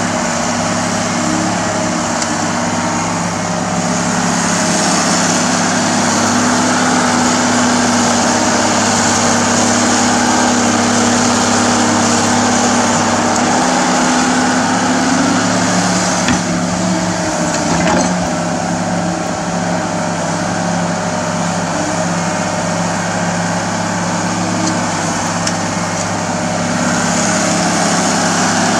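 Komatsu hydraulic excavator's diesel engine running steadily under working load while it digs, with a couple of short knocks about halfway through.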